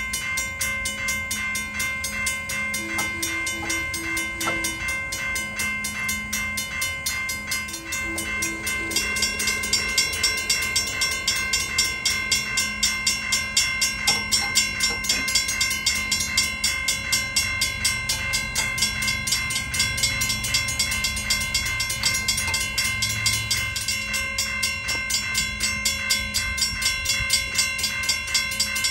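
Railroad crossing warning bell ringing continuously with fast, even strikes, growing louder and brighter about nine seconds in.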